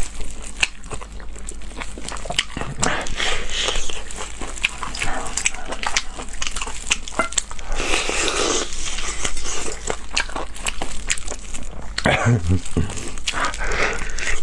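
Close-miked chewing of braised pig's trotter: wet, sticky bites and lip smacks with many sharp clicks, the chewy skin and tendon being worked over and over.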